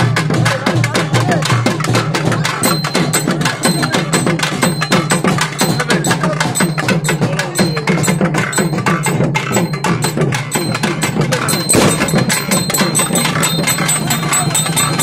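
Festival percussion: drums beaten in a fast, unbroken rhythm of dense, clacking strokes.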